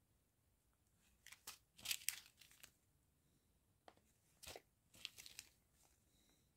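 Small clear plastic bags of round diamond-painting drills handled between the fingers, crinkling in short bursts, loudest about two seconds in and again around the fourth and fifth seconds.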